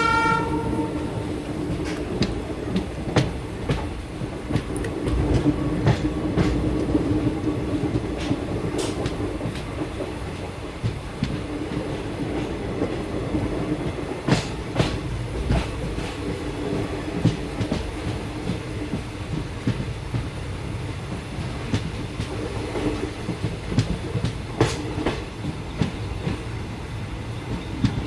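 Train running along the track with a steady low rumble, and now and then sharp clacks of the wheels over rail joints. A horn blast fades out in the first second.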